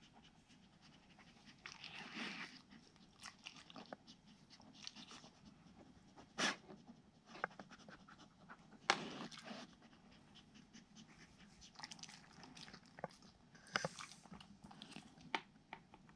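A Siberian husky nosing at a plastic Trixie Activity Flip Board puzzle toy, knocking its cones and covers in a few sharp, scattered clicks and knocks, with soft chewing of treats between them.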